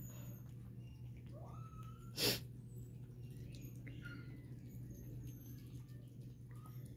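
Newborn miniature pinscher puppies giving faint, high squeaks and short whines. One short, loud burst of noise comes about two seconds in, over a low steady hum.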